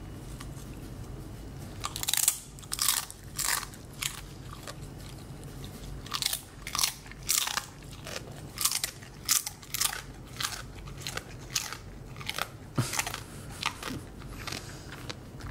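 Siberian husky chewing a very crunchy treat: a run of sharp crunches, roughly one to two a second, starting about two seconds in.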